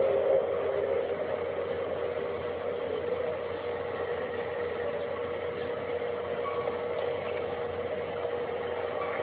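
A steady drone heard in the sky: one held mid-pitched tone over a hiss. It eases down in the first second, then holds level.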